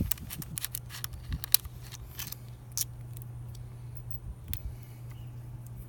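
Small clicks and light rattles of a motorcycle turn-signal assembly and its backing plate being handled, thickest in the first few seconds, over a steady low background hum.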